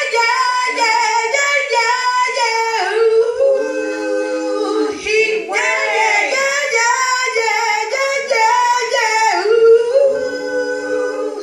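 A woman singing into a handheld microphone, long held notes that slide up and down in drawn-out runs.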